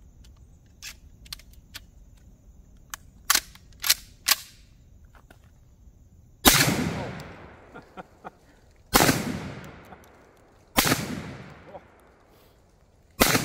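Beretta 1301 semi-automatic 12-gauge shotgun firing Brenneke Black Magic 3-inch magnum slugs: four loud shots about two seconds apart, each followed by a long fading echo. A few light clicks come before the first shot.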